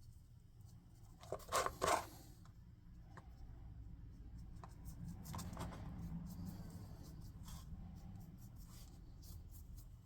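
Handling noises at a painting desk: a quick cluster of scrapes and rustles about one and a half seconds in, then faint scattered clicks.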